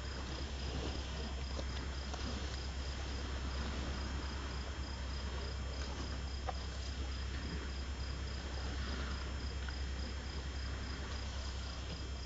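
Crickets trilling steadily in a continuous high tone, over a steady low rumble.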